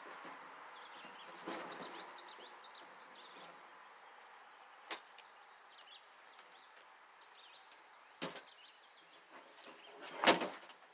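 Large cardboard shipping box being handled: scattered knocks and scrapes as it is lifted off the pallet, then a louder cluster of knocks near the end as it is tipped down onto the ground.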